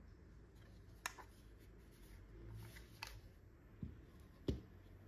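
Faint handling noise from two plastic Wi-Fi access points: a couple of light clicks, then two soft thuds as they are set down on a desk mat, the louder one about four and a half seconds in.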